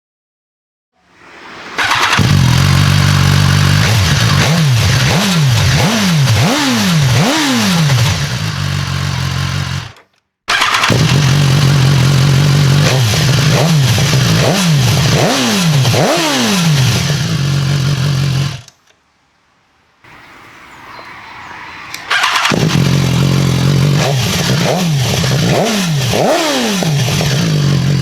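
BMW S1000R inline-four sportbike engine idling and given a run of about four quick throttle blips, each rev rising and dropping back, in three takes cut apart by sudden stops.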